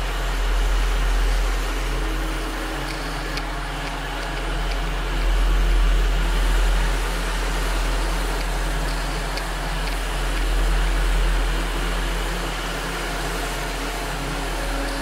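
Onboard audio from an FPV quadcopter in flight: the steady drone of its electric motors and propellers mixed with low wind rumble, swelling and easing every few seconds.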